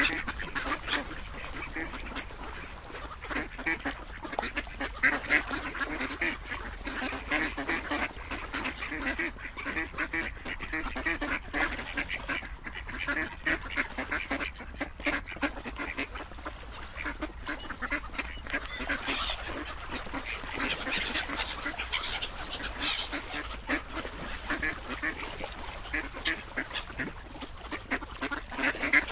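Ducks quacking continuously, call after call with no pause.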